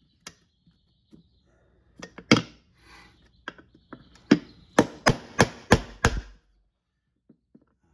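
Hammer tapping a small punch held against the old rear main seal in an LM7 5.3L V8's rear cover, to drive the seal out. A few separate knocks come first, then a quick run of about six blows, roughly three a second, near the end.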